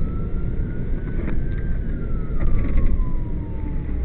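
Fire truck siren on a slow wail, rising for about a second and a half, then falling slowly for the rest, over the heavy low rumble of the truck's engine and road noise. A few brief knocks or rattles come through.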